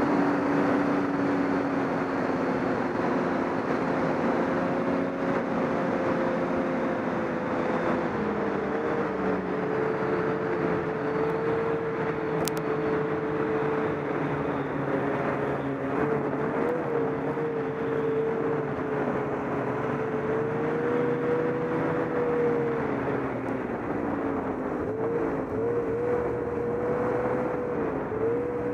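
Snowmobile engine running at a steady cruising speed, heard from aboard the sled, its pitch wavering slightly with the throttle over a steady rushing noise.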